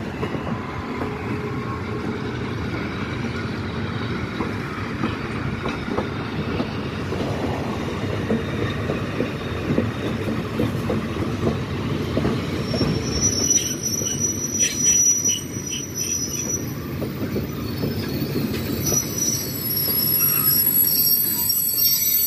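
Railroad cars rolling past close by: a heavyweight passenger coach, then freight cars, with steady wheel-on-rail rumble and clatter. From about halfway through, thin high-pitched wheel squeal sets in.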